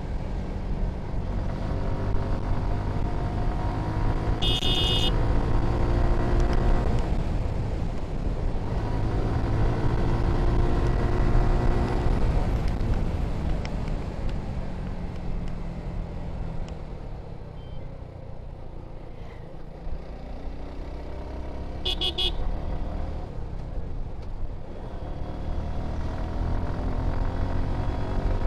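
Stock-exhaust Suzuki Gixxer SF 155 single-cylinder engine while riding, revving up through the gears twice, easing off to a low, quieter stretch past the middle, then picking up again. A vehicle horn honks briefly twice, about five seconds in and again near the end.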